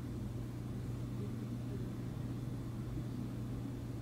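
Steady low hum with faint background noise: room tone, with no distinct events.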